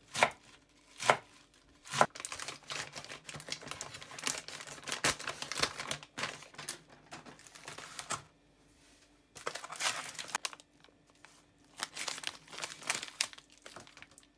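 A chef's knife chops through cabbage onto a wooden cutting board with three sharp cuts in the first two seconds. These are followed by rustling and the crinkling of plastic food packaging.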